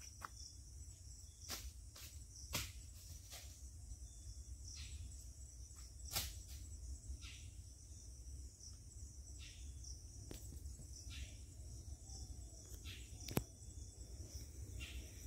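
Faint, steady high-pitched chorus of insects such as crickets in streamside woodland, with a low rumble underneath and a dozen or so sharp clicks scattered through.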